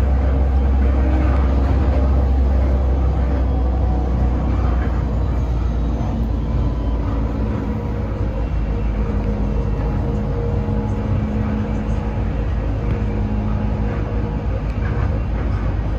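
Bombardier Innovia APM 256 automated people-mover train running along its guideway, heard from inside the car: a steady low rumble with a motor hum, easing slightly about five seconds in.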